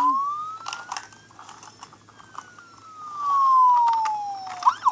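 Toy police car's electronic siren sounding a slow wail that rises in pitch, then falls, and changes to a fast warbling yelp near the end. A few light plastic clicks come from the toy being handled.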